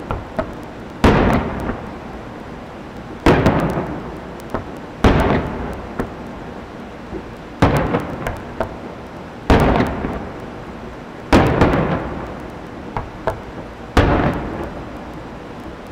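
Aerial fireworks shells bursting: seven loud booms about two seconds apart, each trailing off in an echo, with a few smaller pops in between.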